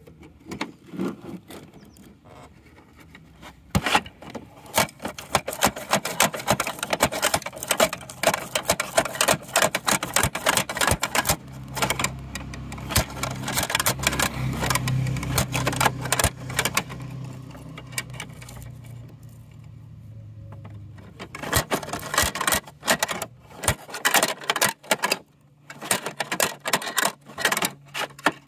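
Plastic toy garbage truck worked by hand: rapid clicking, clattering and rattling of its plastic hopper parts and the small toy trash inside, with a low steady hum in the middle stretch.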